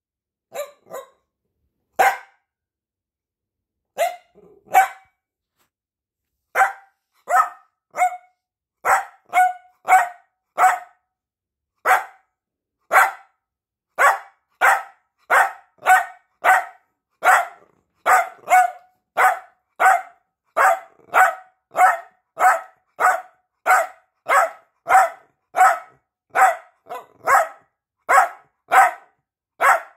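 Piebald dachshund barking at its owner to demand attention: a few scattered barks, then from about six seconds in a steady string of single sharp barks, about one and a half a second.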